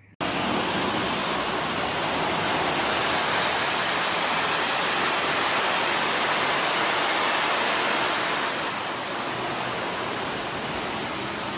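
A loud, steady rushing noise with a high whine, like a jet engine. It starts suddenly. The whine rises slowly, holds, then falls away near the end.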